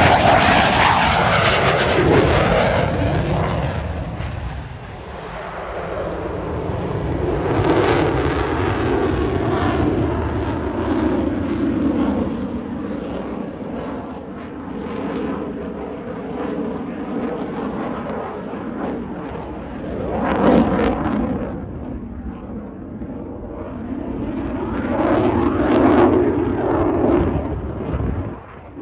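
F/A-18 fighter jet's engines roaring through a low pass and a climb away. The roar swells and fades in waves, loudest at the start, with further swells about eight, twenty and twenty-six seconds in.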